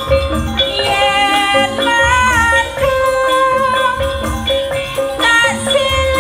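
Live amplified campursari music: a woman sings a Javanese melody into a microphone over an instrumental band with percussion.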